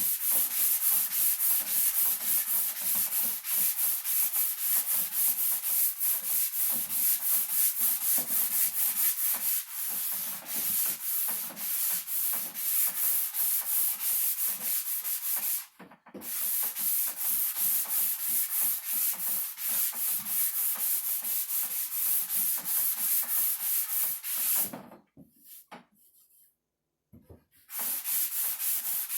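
Sandpaper of 150 grit rubbed over cedar wood in quick, even back-and-forth strokes. The strokes break off briefly about halfway through and for a couple of seconds near the end, then start again.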